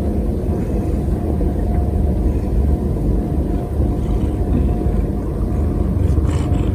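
A cat purring steadily: a loud, low, continuous rumble.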